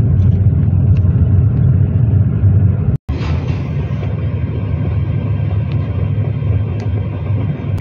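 Steady low rumble of a moving car's engine and road noise, heard from inside the cabin. The sound cuts out for an instant about three seconds in, then the same rumble carries on.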